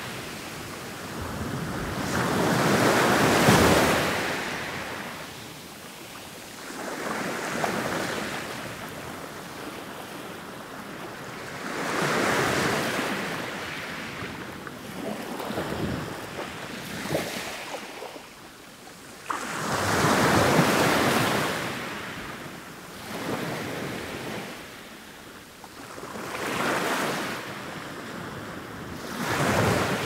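Ocean waves breaking and washing back, swelling in repeated surges every three to five seconds.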